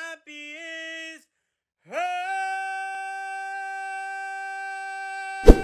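A man singing unaccompanied: a short sung note, a brief pause, then a slide up into one long, steady held note. A sharp loud click comes near the end.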